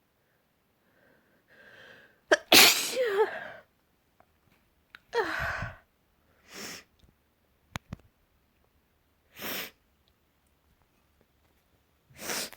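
A person's sneezing fit set off by wood dust, the sneezes wet: a breathy build-up, then a loud sneeze about two seconds in, a second sneeze a couple of seconds later, and several shorter bursts after it.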